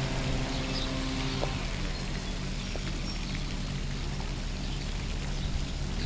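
Small shuttle-type tour bus's engine running with a steady low hum and hiss as the bus pulls slowly away.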